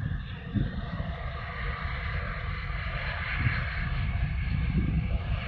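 A steady engine drone, with wind buffeting the microphone underneath.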